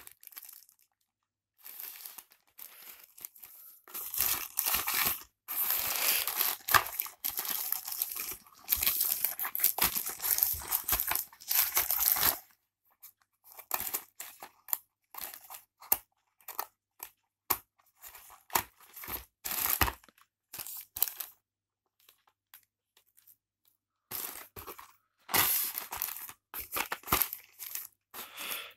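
Plastic courier mailer bag being torn open and crinkled by hand: long stretches of tearing and rustling in the first half, then shorter scattered crackles as small cardboard boxes are handled and pulled out, and another run of rustling near the end.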